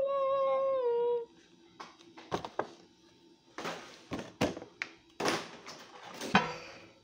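A talking Chamoy toy doll sounding a high, held voice-like tone that dips in pitch and stops about a second in. After it comes a scatter of knocks and thumps from handling and moving things about.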